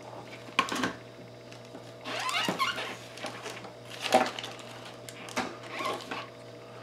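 Handling noises: a few scattered light clicks, knocks and rustles as small objects and the opened plastic plug housing are picked up and moved, over a faint steady hum.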